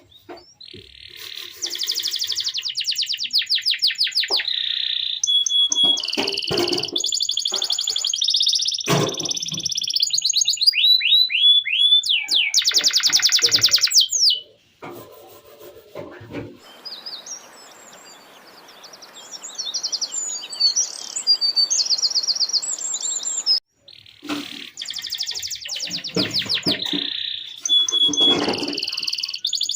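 Male domestic canary singing a long rolling song of fast trills and rapid repeated notes, with clear held notes in between. Around the middle it sings more softly over a background hiss for several seconds, then comes back loud.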